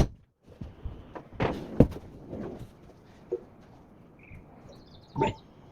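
Golf driver striking balls: sharp cracks right at the start, about two seconds in and about five seconds in, with softer clatter and short high chirps between, all played at triple speed.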